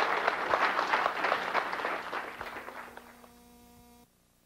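Audience applauding, the clapping thinning out and fading after about three seconds. A faint steady hum follows until the sound cuts off about four seconds in.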